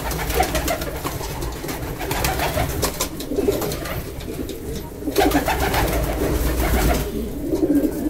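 Homing pigeons cooing in a small loft, several calls overlapping in a continuous burble that swells about three seconds in and again about five seconds in, over a steady low hum.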